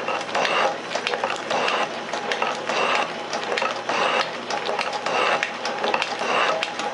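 Metal shaper running, its ram stroking back and forth a little faster than once a second as the tool planes a metal block held in the vise. Each stroke brings a pulse of mechanical clatter with clicks.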